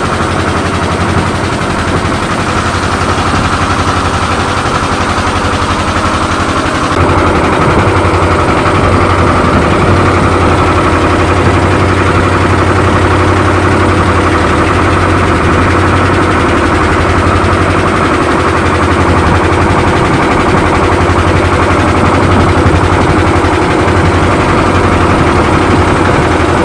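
The wooden boat's engines running steadily under way, a loud fast pulsing beat over a low hum. The sound grows a little louder about seven seconds in.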